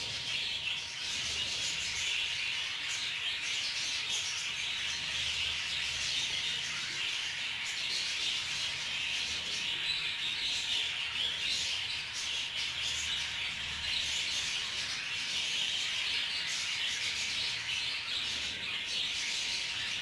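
Budgerigars chirping continuously, a dense, steady chatter of many small calls.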